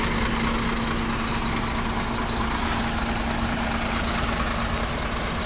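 Heavy diesel engine of a Sinotruk HOWO tractor truck running steadily at low speed, a constant drone with a steady hum, as the truck is pulled slowly through deep mud.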